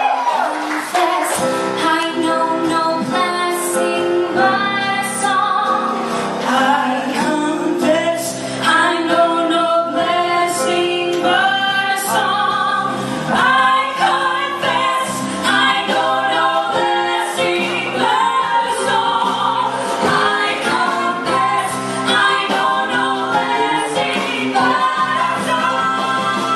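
Women singing a song live into microphones: a lead female voice with other women's voices singing along.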